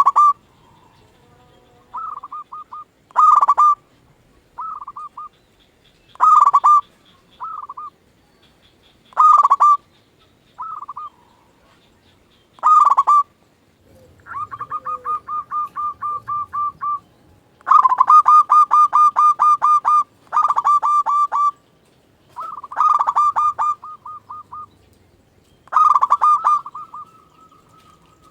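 Zebra dove (perkutut) cooing: short, loud, pitched coo phrases repeated every few seconds. About halfway through come two longer runs of rapid, evenly spaced notes.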